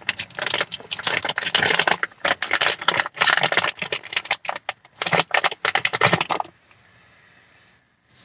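Packaging handled and opened by hand to get a small metal shift-knob adapter out: a rapid run of crinkling and rattling clicks that stops about six and a half seconds in.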